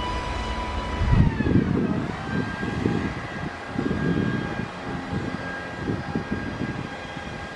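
Pacific National diesel-electric locomotive PN001 working under power as it hauls a heavy container train away from a stop, its engine rumbling roughly beneath a steady high whine that drops in pitch about a second and a half in.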